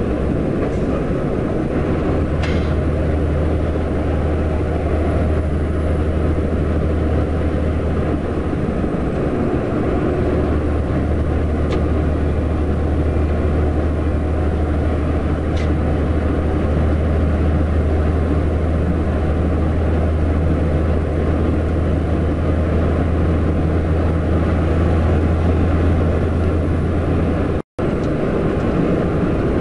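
IVECO truck's diesel engine droning steadily with tyre and road noise, heard from inside the cab while cruising on a motorway. The sound cuts out for an instant near the end.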